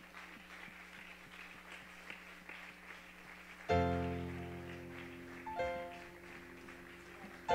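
Soft instrumental worship music: a faint held low note, then, about halfway in, full chords struck every couple of seconds and left to ring out and fade.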